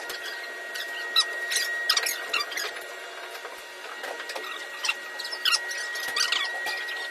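LCD resin 3D printer running with a steady high whine, overlaid with irregular short squeaks and clicks.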